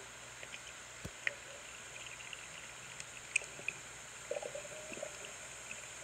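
Faint underwater ambience picked up by a camera submerged in a pond: a steady hiss with scattered small clicks and ticks.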